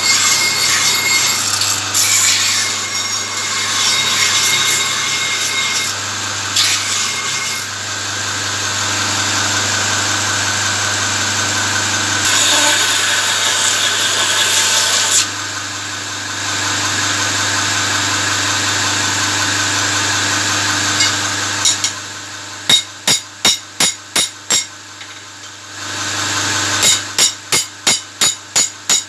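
Electric belt grinder running while a forged steel spear blade is ground against its belt: a rough grinding rasp over the motor's steady hum, which eases off about halfway through. Near the end a fast, even ticking, about four a second, runs alongside the motor hum.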